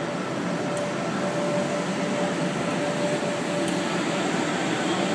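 Steady background hum of a large exhibition hall, with a faint steady tone running through it.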